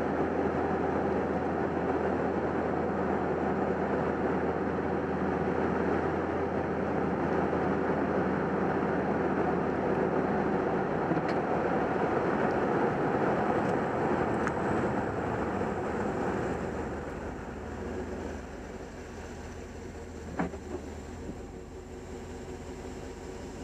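Steady road and engine noise from a Chevrolet Suburban flat-towing a Jeep Wrangler on a tow bar, heard at the rear hitch. It eases off about two-thirds of the way through as the rig slows, and a single sharp click follows a few seconds later.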